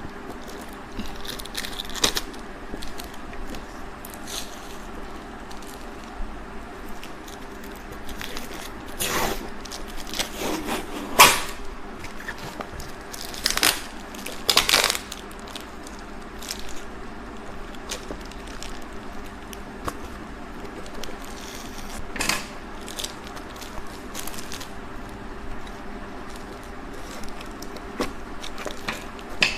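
Packaging being handled and opened by hand: irregular scrapes, rustles, crackles and small clicks, with a cluster of louder ones about ten to fifteen seconds in.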